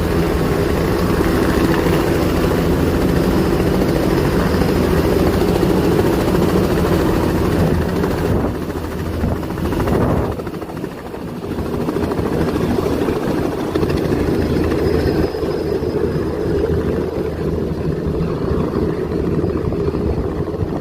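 Helicopter running with a loud, steady rotor and engine drone. It dips and changes briefly about eight to eleven seconds in, then carries on steady.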